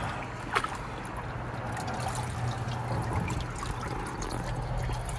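Water trickling and lapping in an ice plunge tub, over a steady low hum, with one short sharp knock or splash about half a second in.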